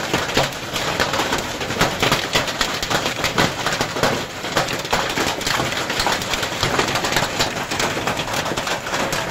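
Hailstorm: large hailstones pelting the ground and nearby surfaces in a dense, continuous clatter of hits.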